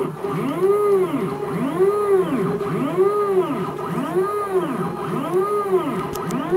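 Stepper motors of a homemade CNC router, dual steppers on the X axis, whining as the machine runs a job at about 120 inches a minute. The pitch rises and falls in even arches about once a second as the axes speed up and slow down along the toolpath.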